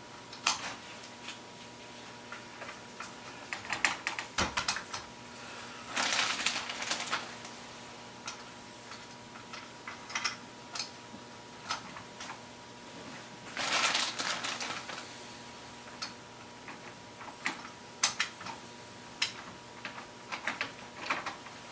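Small wooden milk cans with screw bases clicking and tapping against a Lionel 3472 toy milk car's metal body and door as they are pushed in one by one by hand. The taps come scattered throughout, with two longer, denser stretches of handling noise about 6 and 14 seconds in.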